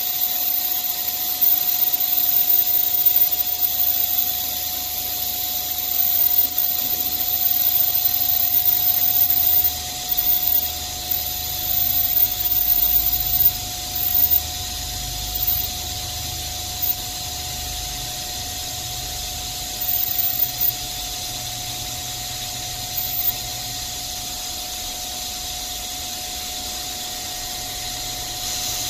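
Grizzly G0602 metal lathe running with a steady whine while a tool cuts the end face of a spinning pulley held in a 5C collet chuck. The cutting noise swells and eases repeatedly in the first half, then comes in a few short passes over a steadier hum.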